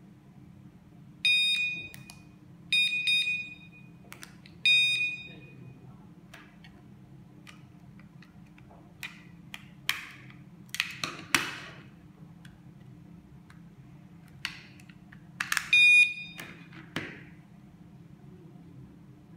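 Piezo sirens of KS-SF03R magnetic door alarms beeping three short times in the first few seconds, as the arm/disarm remote is pressed. Plastic clicks and knocks follow while the alarm units are handled, with one more short beep about three-quarters of the way through.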